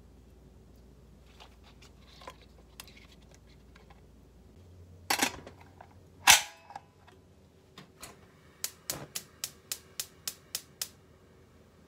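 Stainless steel pressure cooker lid set on the pot with a clatter and clanked shut, a loud metallic clank with a short ring. About three seconds later comes a run of about nine quick, even clicks, some four a second: a gas burner's igniter sparking as it is lit on high heat.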